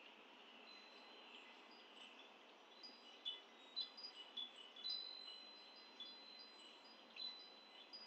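Wind chime ringing faintly: clear high notes at several pitches, thickest from about three seconds in, over a steady background hiss.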